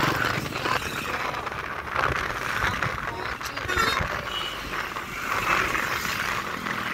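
Wind and road noise from a moving motorcycle in traffic, with a brief high-pitched beep about four seconds in.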